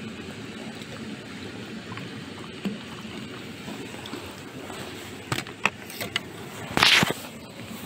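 A landing net holding a perch is brought out of the water onto a concrete bank: a few light knocks, then, about seven seconds in, a short, loud clatter as net and fish come down on the concrete, over a steady outdoor rush.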